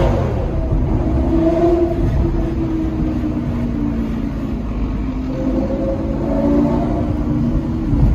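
Sports car engine heard from inside the cabin while driving, running steadily under light throttle, its pitch rising and easing off a few times.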